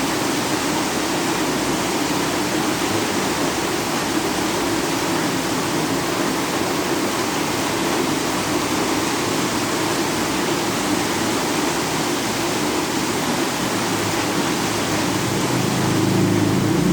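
Heavy rain pouring down in a steady, even hiss. A low rumble swells near the end.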